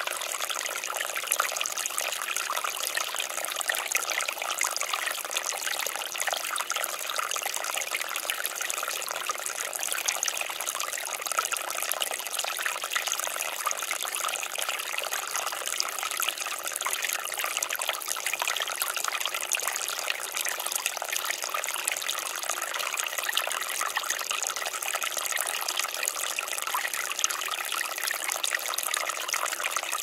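Small forest creek flowing over rocks and pebbles, a steady, gentle trickling with no deep rush.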